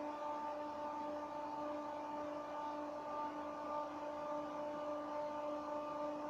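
Christ Genius rollover car-wash gantry running with its side brushes spinning, giving a steady electric-motor hum.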